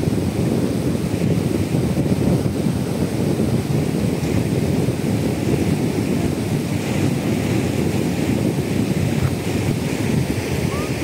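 Wind buffeting the microphone in a steady, rumbling gusty roar, with a shallow river running over stones as a fainter hiss beneath it.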